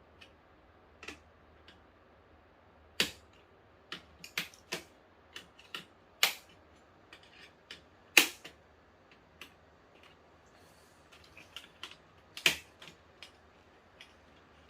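Irregular sharp clicks and taps of small hard plastic parts being handled inside an opened LED TV. Four louder knocks stand out among lighter ticks.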